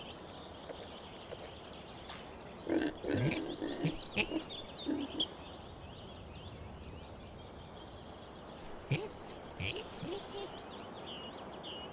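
Pigs grunting several short times, mostly about three to five seconds in and again briefly near the end, over high chirping birds.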